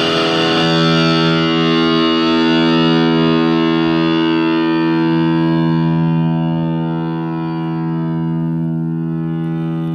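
Electric guitar played through a SubZero SNOWSTORM distortion pedal: a distorted chord struck about half a second in and left to ring, sustaining and slowly fading.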